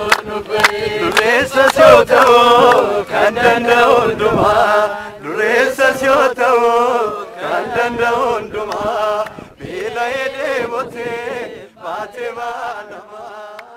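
A group of people singing a chant-like song together with hand clapping. The clapping is clearest in the first few seconds, and the singing grows quieter toward the end.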